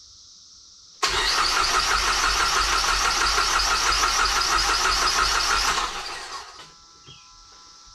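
Dodge SRT-4's turbocharged 2.4-litre four-cylinder turned over on the starter for about five seconds without firing, the fuel relay pulled, to build oil pressure after the rebuild. The cranking starts abruptly about a second in and winds down near the end.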